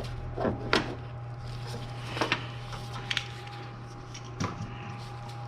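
A few short, light knocks and clicks of parts and hand tools being handled in an engine bay during reassembly, over a steady low hum and a faint steady tone.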